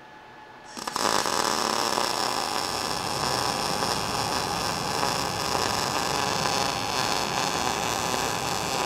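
MIG (gas metal arc) welding with an ESAB Rebel 235 running 0.035 wire under C25 gas at 18.5 volts and 220 wire feed speed: the arc strikes about a second in and then runs with a steady crackle along an outside corner weld on steel diamond plate. The settings are right for the soft, round weld wanted.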